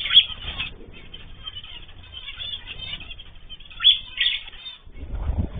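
Small cage birds chirping and chattering continuously, with two louder sharp calls, one at the start and one about four seconds in. A low rumble comes in near the end.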